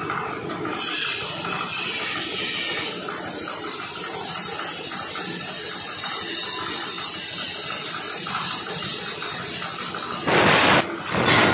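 Steady hiss of compressed air and workshop machinery. About ten seconds in, a plasma cutting torch fires on carbon steel plate with a much louder hiss, cuts out for a moment, then starts again.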